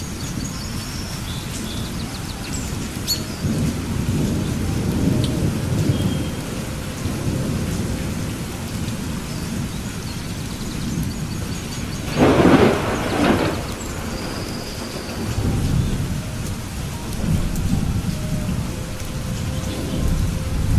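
Thunderstorm: low thunder rumbling in swells over steady rain, with a louder, sharper thunderclap about twelve seconds in that lasts a second or two.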